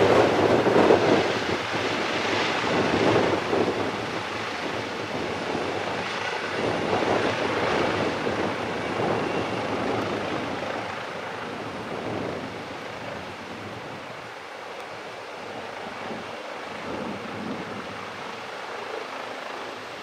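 Eurocopter EC135T2 helicopter's twin turbine engines and rotor running in a low hover and through touchdown. The sound is strongest in the first few seconds and gradually eases as the helicopter settles on its skids.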